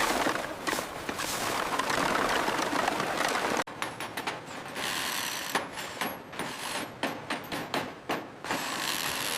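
Building-work sounds: a dense scraping noise, then, after an abrupt cut about three and a half seconds in, irregular mechanical clicks and scrapes.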